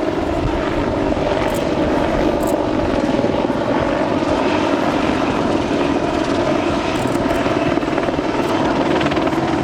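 Boeing AH-64D Apache attack helicopter flying a display pass, its rotor and twin turbine engines running steadily and loudly.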